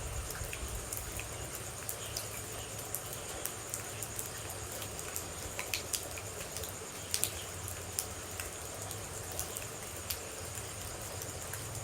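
Steady rain with water droplets falling close by as irregular sharp ticks over a continuous hiss.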